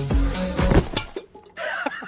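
Electronic dance music with a steady kick drum about two beats a second, stopping abruptly about a second in. Brief voice-like sounds follow near the end.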